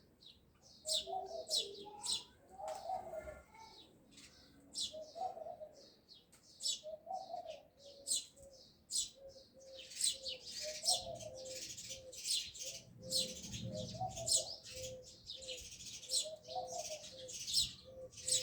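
Small birds chirping in short, high-pitched bursts, busier in the second half, with a dove cooing lower down in repeated phrases.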